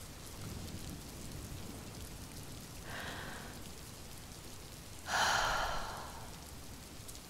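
Steady rain, with a soft breath about three seconds in and a louder breath, like a sigh, about five seconds in.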